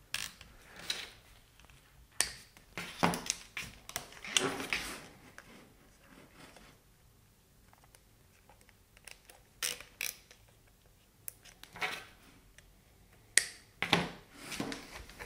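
Plastic cable ties being threaded and pulled tight around the wiring on an air suspension compressor: short ratcheting zips and clicks, with the cables and housing being handled. The sounds come in clusters, with a quiet stretch in the middle.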